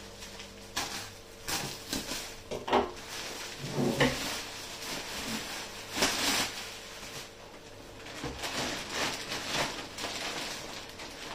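Plastic parcel packaging being unwrapped by hand: a black plastic outer wrap and a gold plastic mailing bag rustle and crinkle, with several sharper crackles as they are pulled apart and lifted.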